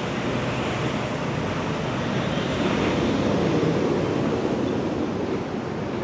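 Wind buffeting the microphone outdoors: a steady rushing noise that swells a little in the middle and then eases.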